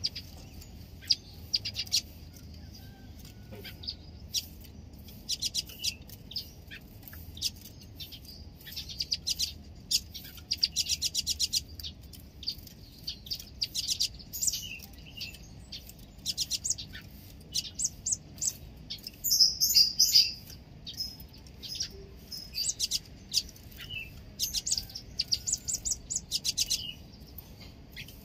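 Caged kolibri ninja (a sunbird) singing: rapid, high-pitched twittering trills in short bursts every second or two, with a louder, busier burst about twenty seconds in.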